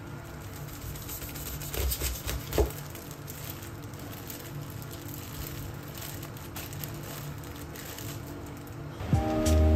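Plastic packaging of a pack of enoki mushrooms crinkling and rustling as it is cut open and the mushrooms are pulled out, with a few short handling knocks, over soft background music. Louder music comes in near the end.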